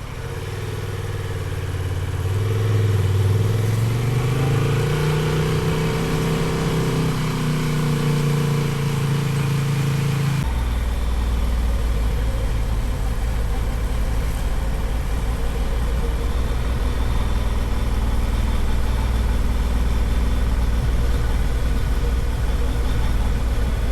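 Honda XL750 Transalp's parallel-twin engine pulling under way, its pitch rising steadily for about ten seconds. Then it abruptly gives way to a steady low rumble with a rush of noise.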